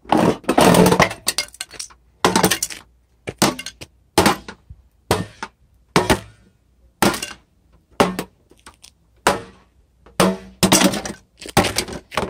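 A stainless-steel Crock-Pot slow cooker being slammed down onto concrete again and again, about once a second, each strike a sharp metallic crash with a short clatter and ring.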